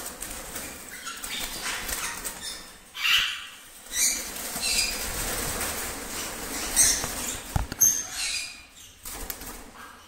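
Cage birds flapping their wings in irregular flurries, with a couple of short high chirps near the end.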